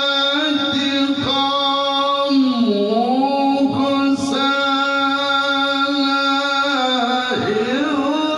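A man reciting the Quran in the melodic tilawah style, holding long drawn-out notes with slow ornamental turns. The pitch dips and glides back up twice, once about a third of the way in and again near the end.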